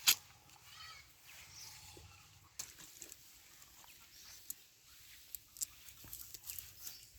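A sharp knock just at the start, then faint clucking of a chicken about a second in, with scattered small clicks over a quiet rural background.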